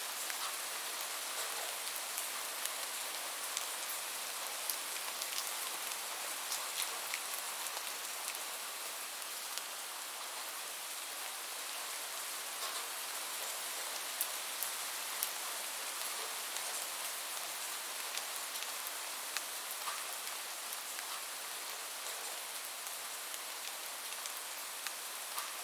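Steady rain falling, a constant hiss with many scattered individual drops ticking sharply.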